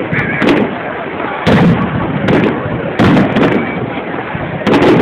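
Aerial firework shells bursting in a quick irregular string of sharp bangs, about six in five seconds, over a continuous background noise between them.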